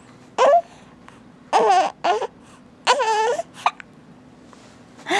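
Young infant making a series of short, high-pitched vocal sounds (coos and fussy little cries), about six in all, the longest about three seconds in.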